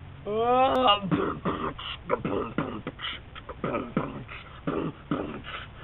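Sneeze boxing: a voiced 'ah… ah…' rising in pitch, like a sneeze coming on, breaks about a second in into a fast run of beatbox mouth percussion that goes on until just before the end.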